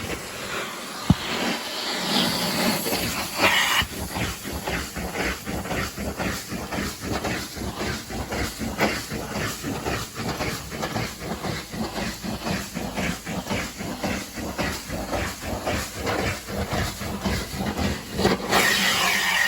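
Carpet steam-cleaning equipment: a steady hiss of spray and suction with quick, even strokes about three a second. The hiss turns brighter near the end.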